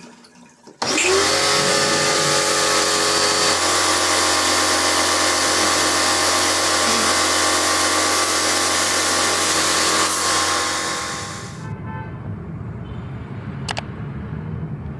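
Electric motor of a cleaning tool switching on about a second in. Its whine rises and settles to a steady pitch, runs for about ten seconds, then winds down.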